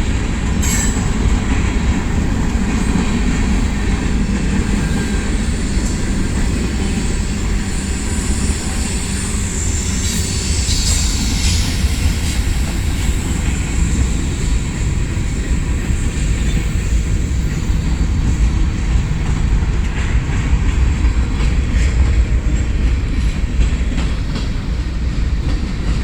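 Manifest freight train's cars rolling past steadily, a continuous low rumble of wheels on rail, with a brief high wheel squeal about ten seconds in.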